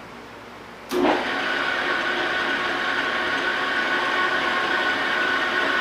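Victor metal lathe switched on about a second in, its spindle and collet chuck spinning up and then running steadily with a constant hum and whine.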